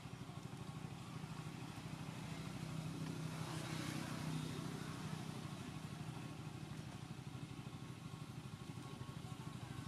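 A motor engine running steadily with a low, rapidly pulsing hum, growing a little louder about three to four seconds in.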